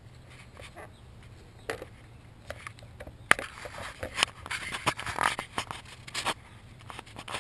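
Plastic front drive wheel of a self-propelled lawnmower scraping and clicking against its axle and drive gear as it is pulled off. There are a few scattered clicks at first, then about three seconds of denser scraping and knocks about three seconds in.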